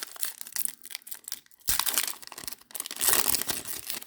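Trading card pack wrapper being torn open and crinkled by hand, a dense crackling with louder stretches about two and three seconds in.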